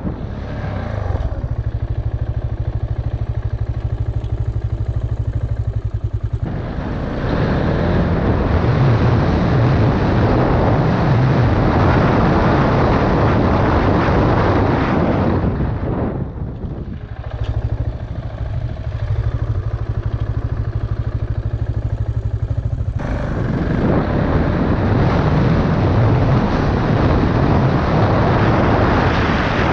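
KTM Duke motorcycle engine heard from the rider's helmet. It settles twice into a steady idle for about five seconds, and in between it runs at riding speed under a loud rush of wind and road noise.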